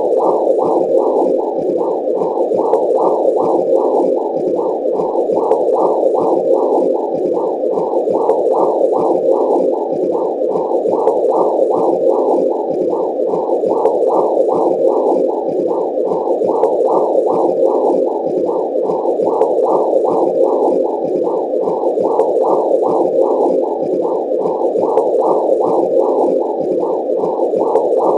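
Womb sound effect: a dull, low whooshing noise that pulses evenly about twice a second, imitating blood flow and heartbeat as heard inside the womb.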